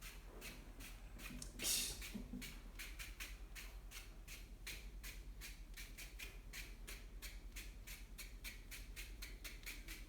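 A comb scraped rhythmically through thick afro-textured hair, played as percussion: a quick, even scratching of about four strokes a second. One louder scrape comes just under two seconds in.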